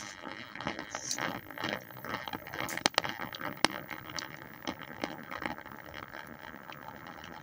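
Small hydrogen-oxygen thruster rig fed by water electrolysis, running with a steady bubbling, watery gurgle broken by scattered crackles and sharp pops. The two sharpest clicks come about three seconds in.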